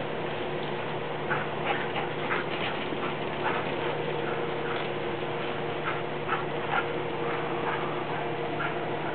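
A squeaky dog toy being chewed during play, giving a dozen or more short, high squeaks at an irregular pace from about a second in, over a steady low hum.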